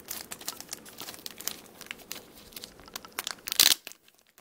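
Clear plastic packaging bag crinkling and crackling as it is handled, with a louder crackle about three and a half seconds in, then a short hush.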